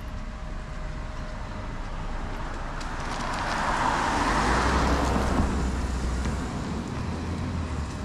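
A car passing by: tyre and engine noise swells to a peak about halfway through, then fades, leaving a low engine rumble that lingers near the end.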